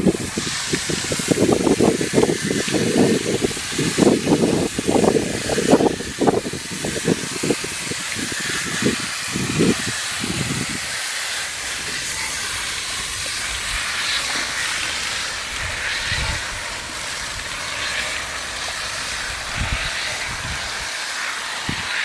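Garden-hose pistol nozzle spraying a jet of water onto an air-conditioner condenser coil: a steady spray hiss with water splashing off the fins. Irregular low rumbling comes and goes through the first ten seconds or so, then the hiss continues alone.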